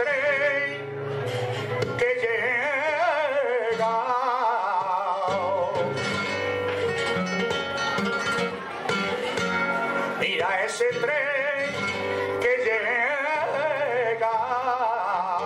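Male flamenco cante: an elderly cantaor singing long, wavering, heavily ornamented phrases with wide vibrato, over flamenco guitar accompaniment.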